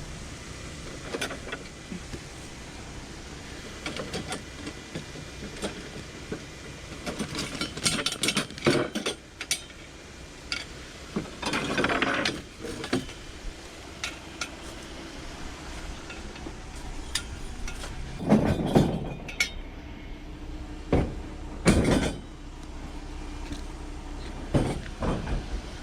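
Hard objects being handled: irregular clicks, knocks and rattling, with louder clattering spells about midway and twice more in the last third.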